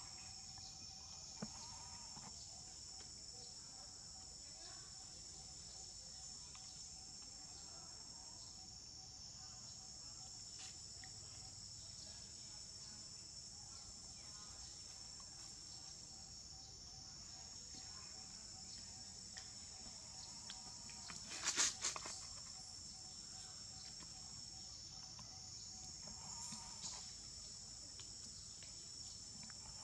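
Steady high-pitched drone of an insect chorus, with a brief cluster of sharp knocks about two-thirds of the way through.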